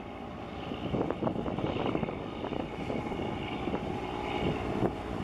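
Steady engine drone from a small fishing boat passing close, with wind buffeting the microphone.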